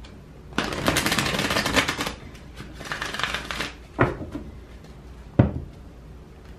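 A tarot deck being shuffled by hand in two bursts of rustling, the first longer and louder. Then two short, sharp knocks about a second and a half apart.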